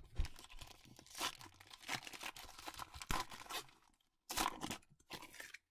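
A foil 2021 Panini Mosaic Euro trading-card pack being torn open by hand: crinkling tears of the wrapper for about four seconds, then two short crinkles near the end.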